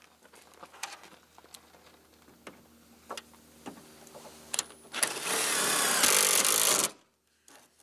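Cordless drill running for about two seconds, driving a screw to fasten a rear wing bracket to a car's trunk lid; it starts about five seconds in and stops abruptly. Before that, a few light clicks and taps of handling the parts.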